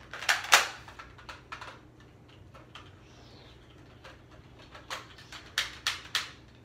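Sharp plastic clicks from a toy blaster being handled and reloaded: a quick cluster of clicks about half a second in, a few single clicks after it, then a run of four sharp clicks near the end.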